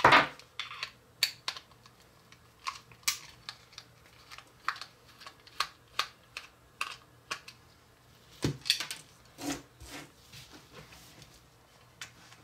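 Irregular light clicks and taps of a small screwdriver and screws on the hard plastic body of a battery-operated toy eagle as it is unscrewed.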